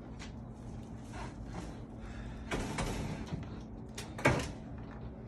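Handling noise: a stretch of scraping or rustling about two and a half seconds in, then a single sharp knock just after four seconds.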